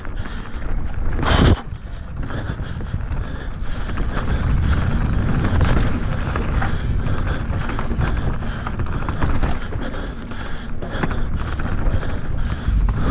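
Wind buffeting the microphone and tyres rolling over dirt and loose stones as a Transition Sentinel V2 mountain bike descends a trail. A loud burst of noise about a second and a half in cuts off suddenly.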